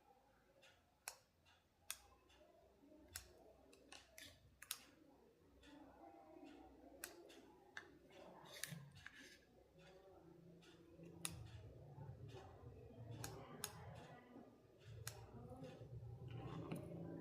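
Faint, scattered clicks and taps of small tools and parts being handled during a repair, irregular, about one a second. A low hum comes up in the second half.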